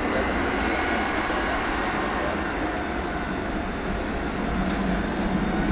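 Boeing C-17A Globemaster III's four Pratt & Whitney F117 turbofan engines running as the airlifter rolls along the runway: a steady jet rush over a low rumble, swelling slightly near the end.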